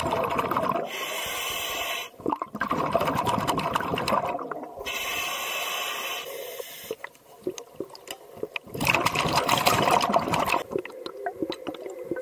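A scuba diver breathing underwater through a regulator: a steady hiss on each inhale alternating with a burble of exhaled bubbles, two breaths.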